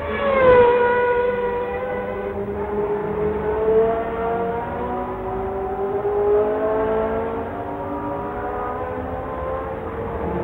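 Formula One racing car engines at high revs. One car passes close at the start, its pitch dropping sharply as it goes by, then several engines at different pitches are heard over each other, slowly rising and falling as the cars lap.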